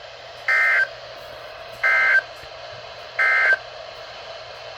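Emergency Alert System end-of-message data burst: three short, identical warbling two-tone digital bursts about 1.3 s apart over a steady background hiss, signalling the end of the severe thunderstorm warning broadcast.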